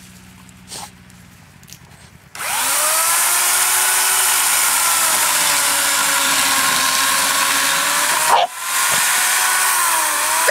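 Buzzsaw engine idling low, then revved hard about two seconds in and running loud with a wavering pitch as it works. It drops off briefly near the end and picks straight back up.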